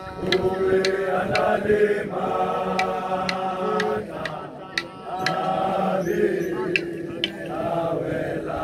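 A group of voices singing in chant-like phrases a second or two long, with short breaks between them. Sharp percussive strikes keep a beat about twice a second.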